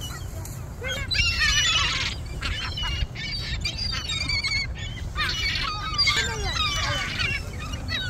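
A flock of gulls squawking and calling over one another, loudest in two busy clusters, about a second in and again around five seconds in, with a low steady rumble underneath.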